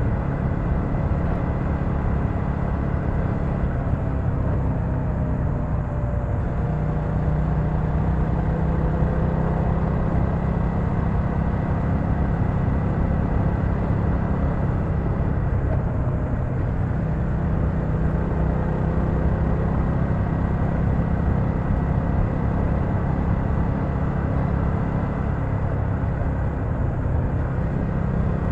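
BMW F900XR's parallel-twin engine running steadily at cruising speed, mixed with steady wind and road noise. The engine note shifts briefly about six seconds in and again around sixteen seconds in.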